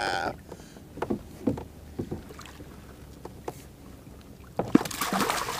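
Scattered light knocks and clicks of fishing gear on a kayak while a hooked rainbow trout is fought. Near the end comes a loud burst of water splashing as the trout thrashes at the surface beside the kayak.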